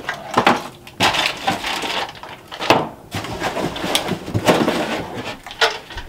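Rummaging sounds: rustling of packaging with irregular light knocks and clatters as parts are handled, ending with a small metal breaker box enclosure being lifted out.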